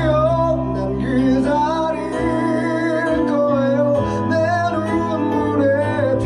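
A male vocalist singing a slow song over piano chords played on an electric stage keyboard.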